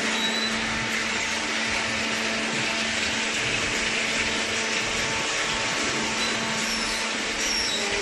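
Steady machine noise from a running electric motor: an even whirring hiss with a constant low hum.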